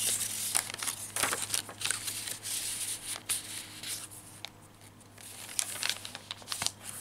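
Paper rustling and crinkling as loose paper ephemera tucked into the pages of a handmade junk journal is handled and a page is turned. It eases off for a moment past the middle, then picks up again.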